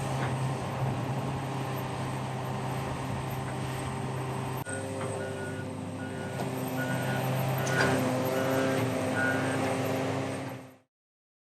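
Large excavator's diesel engine running steadily. About halfway through the sound changes abruptly, and a motion alarm then beeps at about two beeps a second over the engine. Near the end everything cuts off.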